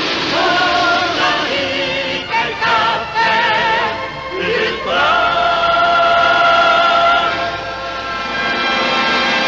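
Orchestral TV theme music with voices singing, the lines wavering with vibrato, then settling into a long held chord about five seconds in.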